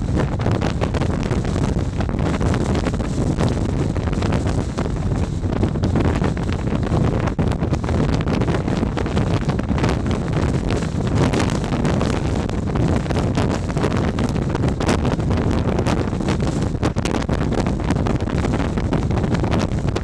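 Gale-force wind of more than 60 knots buffeting the microphone: a loud, unbroken rush of wind noise, heaviest in the low end, with constant gusty buffets.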